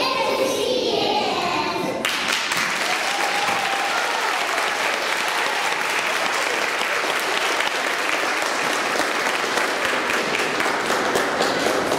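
Children's voices for the first two seconds, then an audience breaks into applause all at once, with steady clapping through the rest.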